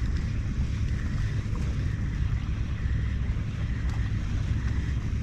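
Wind buffeting the microphone in a steady low rumble, with water washing along the hull of a moving kayak.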